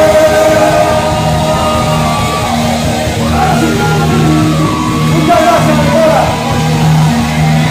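Live rock band playing loudly, with two vocalists singing and shouting into microphones over the band.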